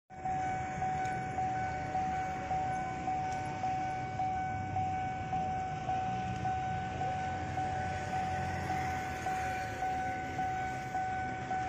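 Railway level-crossing warning bell ringing, one high ringing tone struck over and over a little under twice a second, each stroke fading before the next.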